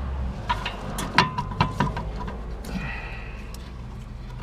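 Clicks and knocks of metal parts with brief squeaks as the rear shock absorber is shifted to line up its mounting bolt with the hole.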